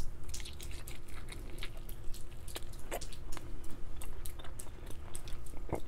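A man chewing a bite of smoked pork spare rib close to a clip-on microphone: a run of short, irregular wet mouth clicks.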